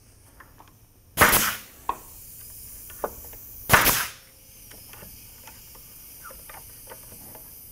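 Nail gun firing twice, about two and a half seconds apart, driving nails through the glued end pieces of a wooden jig; each shot is a sharp crack with a short rushing tail. Faint clicks of handling come between the shots.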